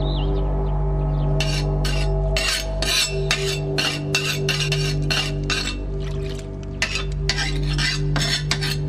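A cleaver being sharpened on a whetstone: repeated scraping strokes of the blade across the stone, about two a second, starting a second and a half in. A steady low music drone runs underneath.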